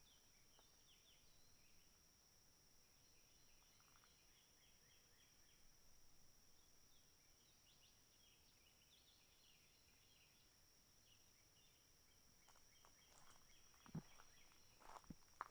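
Faint outdoor ambience: small birds calling in short twittering bursts over a steady high-pitched hum, with a couple of footsteps near the end.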